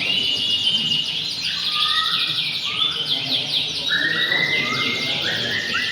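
Several caged domestic canaries singing at once, fast rolling trills and chirps that overlap continuously, as competing birds do on the contest rows.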